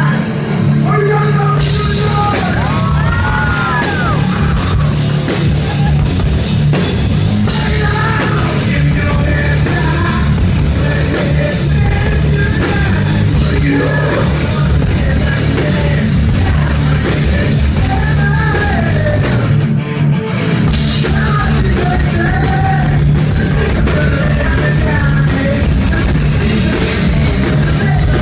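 Rock band playing loudly with a singer and drum kit. The full band comes in about one and a half seconds in, and the low end drops out briefly near twenty seconds.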